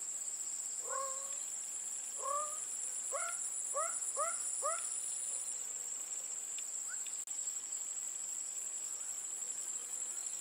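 Insects trilling steadily in a high, even tone, with a second, higher trill joining for a few seconds near the start. About a second in, an animal gives a series of six short upward-sliding calls that come faster and faster, ending about five seconds in.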